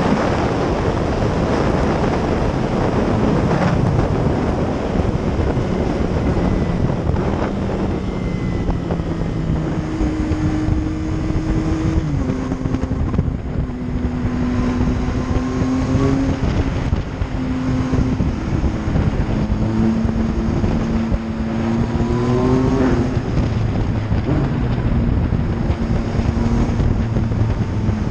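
Yamaha MT-09's three-cylinder engine running under heavy wind noise at high speed. As the wind eases, its note rises and falls, with sudden jumps in pitch at the gear changes.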